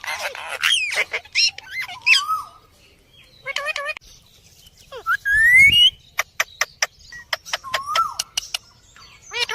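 Pet parrot calling: a run of whistles, chirps and short squawks. About five seconds in comes a rising whistle over a dull rumble, followed by a string of sharp, clicking calls.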